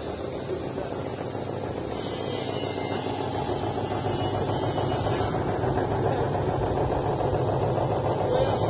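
Drum-type poultry feather-plucking machine running steadily, its motor and spinning drum making a continuous mechanical noise that grows slightly louder.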